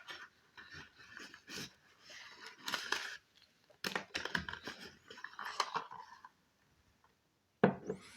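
Cardboard carton and paper packaging of a cough-syrup pack being handled, with irregular rustling, crinkling and scraping, then a sharp knock near the end.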